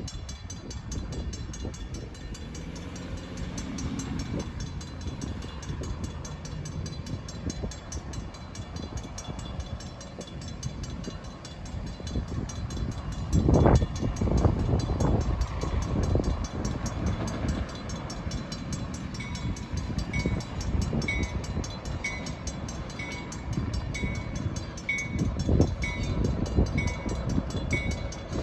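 A train running past on the rails with a low rumble, a burst of loud clanking and clatter about halfway through, and a bell dinging about once a second in the last third.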